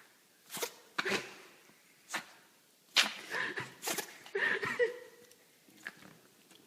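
An animal sneezing over and over: a string of short, sharp sneezes in quick succession, about seven in the first five seconds.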